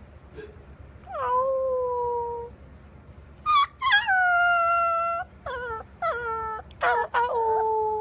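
Golden retriever puppy howling: a string of about six high, thin howls, each dropping in pitch as it starts and then held steady, the longest about a second.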